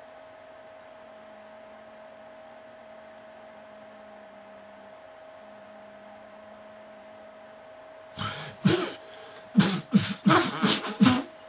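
A faint steady electrical hum, then about eight seconds in, a man's voice breaks out in loud, short vocal outbursts: two, then a quick run of about five a second.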